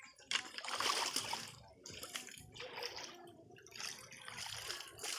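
Muddy river water splashing and sloshing around people wading and sweeping a hand net through it, in irregular surges, the loudest about half a second to a second and a half in.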